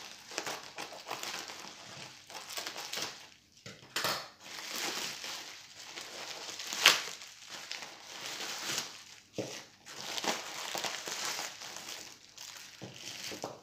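Plastic bag and bubble wrap crinkling and rustling as they are cut open with scissors and pulled apart by hand, in irregular crackles with one sharp crack about seven seconds in.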